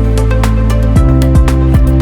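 Background music: an electronic track with sustained bass notes and a steady beat.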